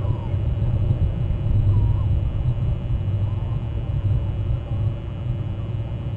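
Steady low rumble, with a few faint, distant bird calls about a third of a second and two seconds in.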